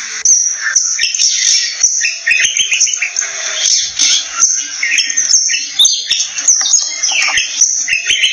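Birdsong: a dense, unbroken run of varied chirps, whistles and quick gliding notes, several overlapping at once.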